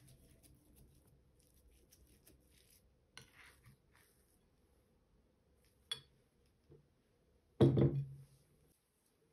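Kitchenware handled while making pastry: soft rustling, a short scrape, a light click, then a louder knock and clatter of dishware set down near the end.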